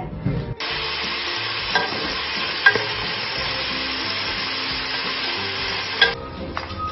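Diced bacon sizzling in oil in a pot, stirred with a wooden spoon that clicks against the pot a couple of times. The sizzle starts suddenly about half a second in and cuts off about a second before the end.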